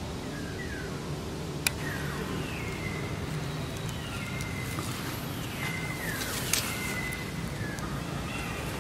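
Baby long-tailed macaque giving a string of thin, whimpering coos, each sliding down in pitch, some held briefly before they drop. Two sharp clicks come through, one a little under two seconds in and one past the middle.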